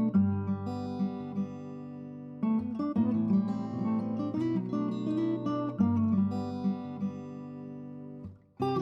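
Background music: an acoustic guitar playing plucked and strummed chords, breaking off for a moment near the end.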